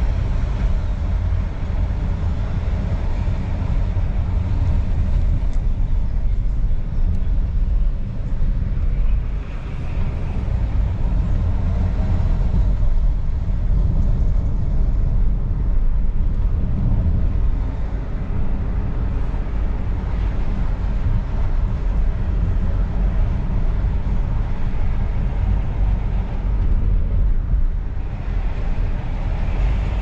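Cabin sound of a 2018 Volvo XC90 D5 being driven at low road speed: a steady low rumble of its four-cylinder diesel engine and tyre noise, heard from inside the car.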